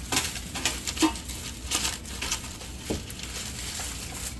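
Kitchen handling sounds while seasoning food: irregular crinkling and clicking, with a sharper knock about three seconds in.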